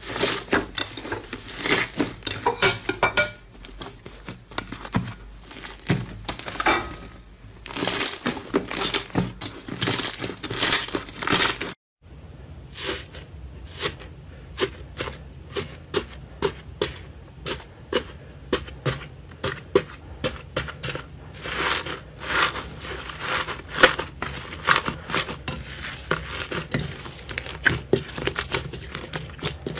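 Hands squeezing, stretching and pressing slime, including slime packed with foam beads, make a dense run of small crackles and pops. There is a short break about twelve seconds in.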